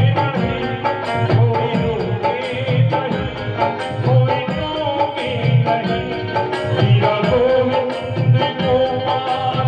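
Indian devotional bhajan music: a hand drum beating about once a second under steady, sustained melody tones.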